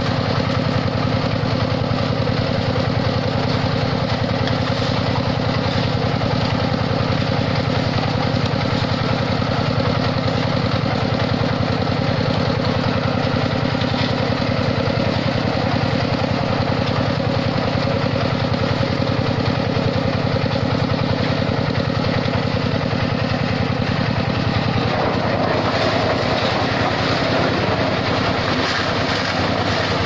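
Engine of a small concrete mixer truck running steadily while its drum turns and discharges concrete. The engine note shifts slightly near the end.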